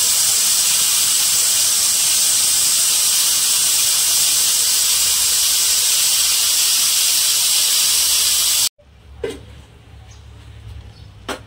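Pressure cooker with its whistle weight lifted off, steam hissing hard and steadily out of the vent as the pressure is let out. The hiss cuts off abruptly near the end, leaving a faint low hum and a couple of light knocks.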